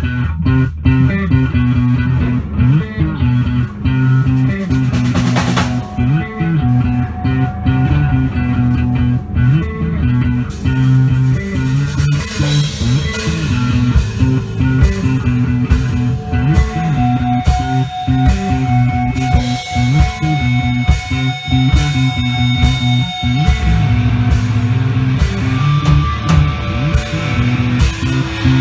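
A rock band playing live: an electric bass line over a drum kit, with an electric guitar. About twelve seconds in the cymbals become busy and long, sustained guitar notes ring over the bass.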